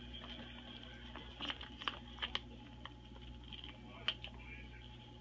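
Twelve-day-old Rhodesian Ridgeback puppies suckling from their mother: scattered wet smacking clicks, a few sharper ones about two seconds in and near four seconds, over a steady low hum.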